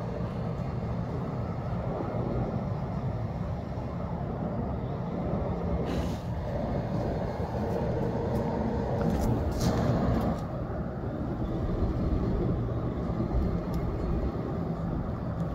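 Breeze blowing over the microphone as a steady low rumble, with the trees stirring and a few sharp clicks around the middle.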